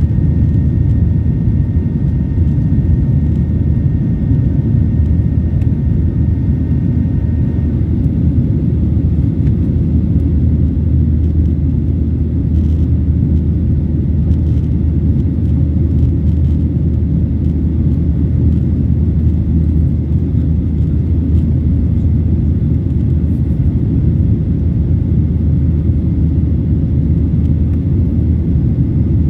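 Steady, loud cabin rumble of a Boeing 737 airliner's jet engines and airflow, heard from a window seat while the plane climbs after takeoff. A faint high whine fades out about eight seconds in.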